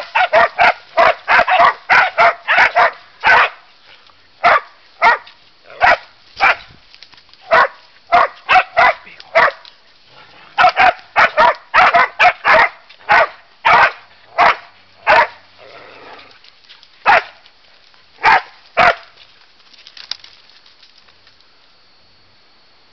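Hunting dog barking at a wild boar held at bay in the brush: sharp barks in quick runs of about three a second at first, then spaced further apart, stopping about nineteen seconds in.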